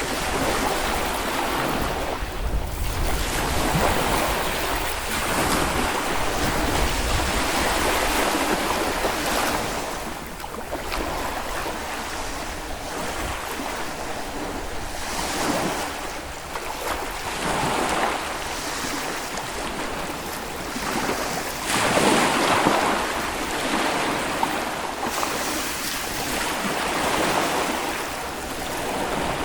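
Small Baltic Sea waves breaking and washing up a beach, the surf swelling and ebbing every few seconds, with some wind on the microphone.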